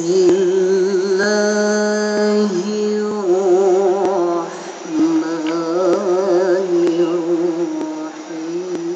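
A woman's voice chanting Quran recitation in the melodic tilawah style, holding long notes with a wavering pitch.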